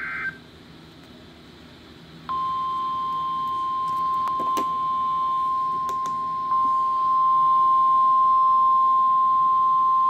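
Weather radio alert tones: the end of a short buzzy burst of digital alert header data, then about two seconds in the steady 1050 Hz warning alarm tone, one unbroken high beep that holds on and gets louder about six and a half seconds in. The tone signals that a warning, here a severe thunderstorm warning, is about to be read.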